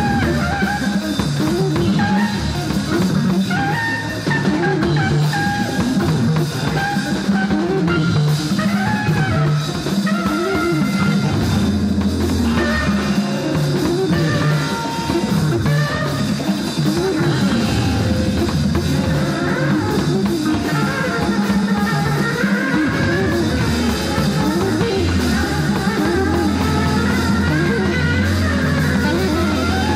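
Live electric jazz-funk band playing a dense groove: drum kit and electric bass hold a steady low pulse while electric guitar lines waver up and down above.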